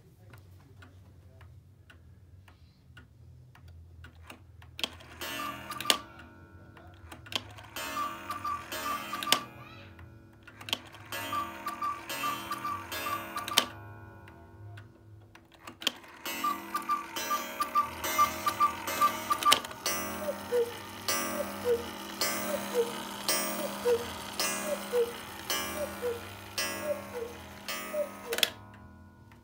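Antique Black Forest quail cuckoo clock striking the hour. After a few seconds of ticking, the quail's bellows pipe calls in four quick runs of notes, then the cuckoo's two-note falling call repeats about once a second to count the hour, with the movement clicking throughout.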